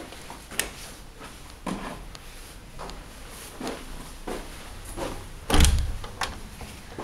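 Interior door being handled and opened: a string of short clicks and knocks about once a second, with one loud, heavy thump shortly before the end.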